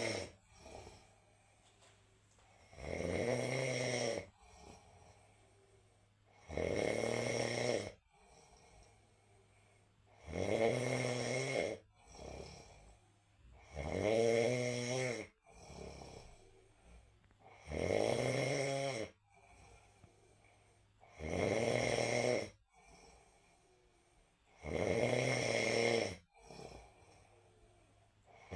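A person snoring in a steady rhythm: a buzzing snore just over a second long about every three and a half to four seconds, with quiet breathing in the gaps between.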